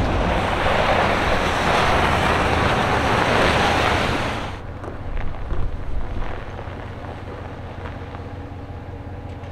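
A loud, steady rushing noise cuts off abruptly about four and a half seconds in. What remains is the quieter low rumble of a Ram pickup running as it tows a car trailer.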